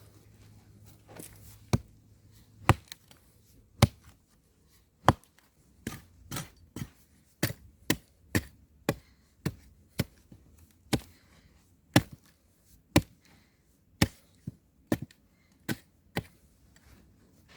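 Axe chopping into wood: more than twenty sharp, separate strikes, about one a second at first, quickening to about two a second in the middle, then slowing again.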